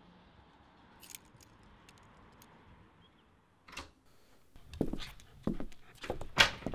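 Quiet room hiss with a faint click or two, then from a little past halfway a string of sharp clinks and knocks, the loudest near the end.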